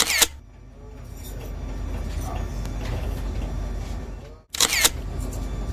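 Camera shutter sound effect, twice, about four and a half seconds apart, each a quick double click that comes right after a brief cut to silence. A steady low rumble runs underneath.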